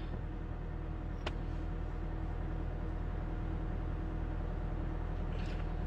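Steady low rumble of a car heard from inside its cabin, with one faint click about a second in.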